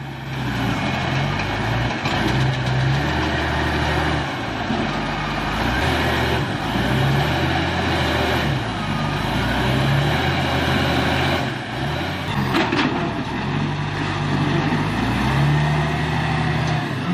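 Diesel engine of a hydraulic log loader working, its pitch rising and falling in steps as the load on it changes, with a sharp knock about three-quarters of the way through.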